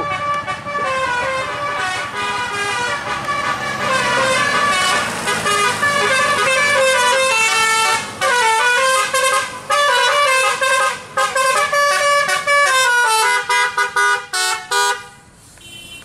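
Bus telolet horn: a set of multi-tone musical air horns playing a quick stepping melody, several notes a second, which breaks up and stops shortly before the end.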